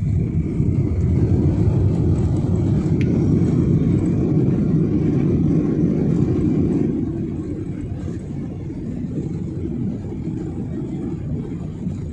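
Boeing 737 turbofan engines and landing-roll rumble heard inside the cabin as the airliner runs down the runway after touchdown: a loud low roar that eases off about seven seconds in to a quieter steady rumble.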